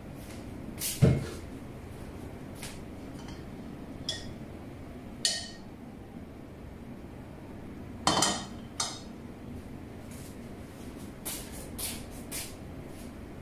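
Wok and cooking utensils being handled on the stove, a handful of separate knocks and clinks over a steady low hum. The loudest knock comes about a second in, with a cluster of clinks about eight seconds in and lighter ticks near the end.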